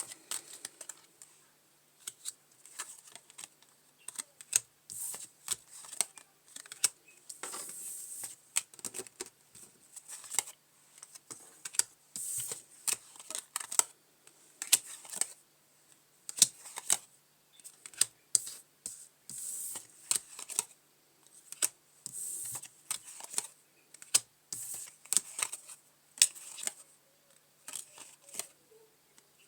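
Playing cards being shuffled and laid down on a table: a long irregular run of sharp snaps and clicks with short sliding swishes.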